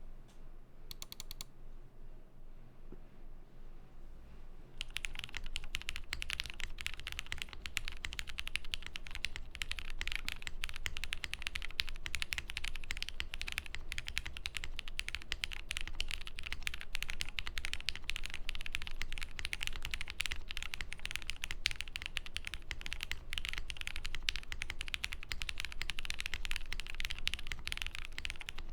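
Fast continuous typing on a custom Matrix 8xv 3.0 mechanical keyboard with lubed and filmed Cherry Nixie linear switches, GMK keycaps and a POM plate with foam dampening. After a quiet start with a few clicks about a second in, dense rapid keystrokes begin about five seconds in and continue.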